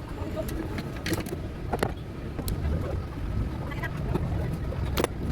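Scattered sharp clicks and knocks of stand fan parts being handled and fitted together during reassembly, about five in all, over a steady low rumble.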